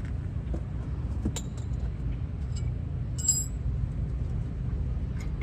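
Light metallic clinks of hand tools and brake hardware being handled, the clearest a short ringing clink about three seconds in, over a steady low rumble.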